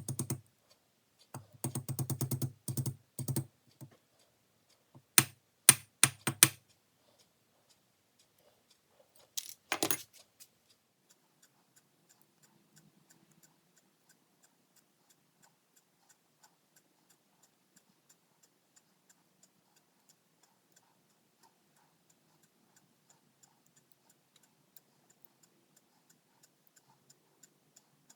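Small sharp clicks and taps of a metal box latch being worked on, in a few quick clusters over the first ten seconds; then near silence.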